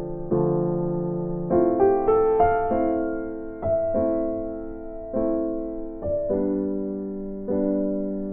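Background music played on a keyboard: slow sustained piano chords struck about once a second, with a short run of quicker notes a couple of seconds in.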